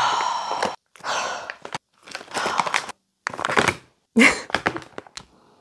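Crinkling and rustling of a plastic candy pouch being opened and handled, in about five short bursts.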